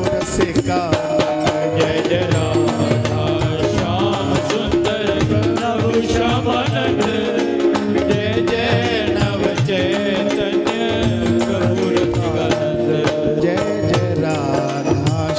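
Indian devotional kirtan music: a hand drum and jingling percussion keep a steady beat under a wavering melody line, with no clear words sung.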